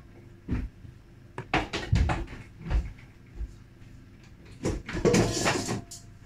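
Kitchen cupboard and utensil handling: a string of separate knocks and bumps, then a longer clatter of things being moved about five seconds in.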